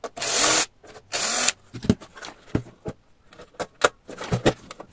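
Cordless drill-driver running in two short bursts, backing screws out of a welder's plastic housing. After that come scattered clicks and knocks as the plastic housing is handled and pulled apart.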